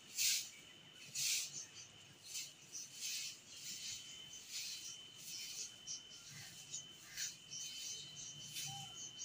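Dry grass-stalk hand broom swept over a bare cement floor in repeated strokes, each a short swish: about one a second at first, coming quicker later on. A thin steady high tone runs underneath.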